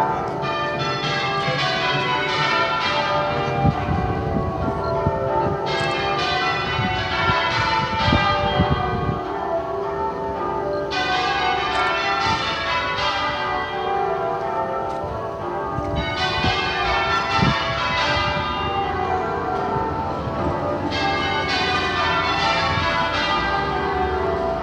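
Church tower bells change ringing: fast rows of strikes stepping down in pitch from the highest bell to the lowest, one row after another, each bell ringing on under the next.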